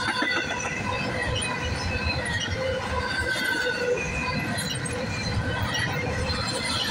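Double-stack intermodal freight train passing close by: well cars rumbling over the rails, with high-pitched wheel squeal rising and fading throughout.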